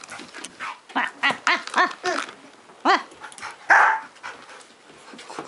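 Excited dog giving a quick series of short, arching yips and barks, with a louder, harsher bark near the end.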